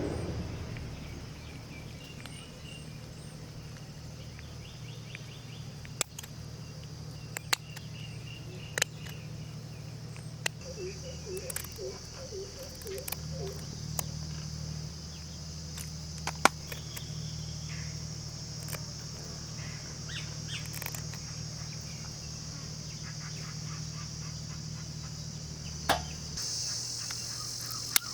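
Insects chirping steadily in a high, even drone over a low steady hum, with scattered sharp clicks and a few short bird chirps.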